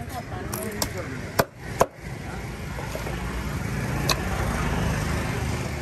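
Four sharp knocks: two loud ones close together about a second and a half in, a fainter one before them and another about four seconds in. They sit over a steady low engine rumble that grows louder toward the end.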